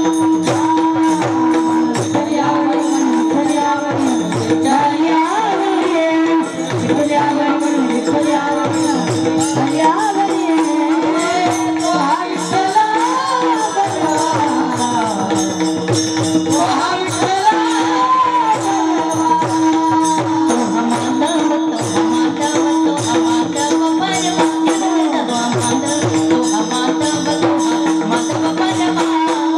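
Music: a wavering melody over a steady held drone, with fast, dense shaken percussion keeping the beat.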